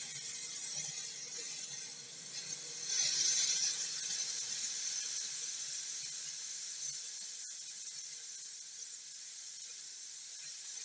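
3.5-litre Hawkins pressure cooker hissing steadily as steam builds under its whistle (weight valve) on a high flame, getting louder about three seconds in. A single sharp click about halfway through.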